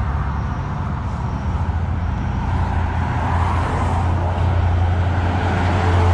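Highway traffic with heavy trucks approaching, a low engine hum and tyre noise that grows steadily louder.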